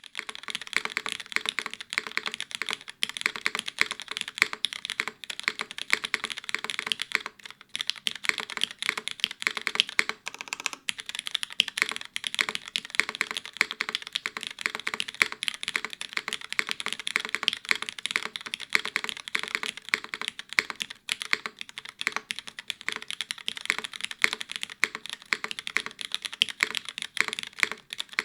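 Continuous fast typing on a custom mechanical keyboard with lubed Cherry MX2A Black linear switches, an aluminium plate and GMK ABS keycaps, no foam: rapid key clacks with brief pauses here and there.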